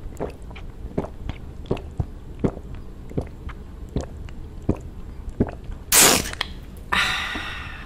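A person gulping a drink close to the microphone: a run of short swallowing clicks, roughly one every half to three-quarters of a second, then a loud slurp about six seconds in and a longer breathy sound just after.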